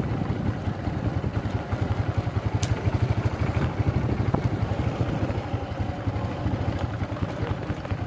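Motorcycle engine running steadily while riding a rough dirt and gravel track, with two sharp knocks a few seconds in.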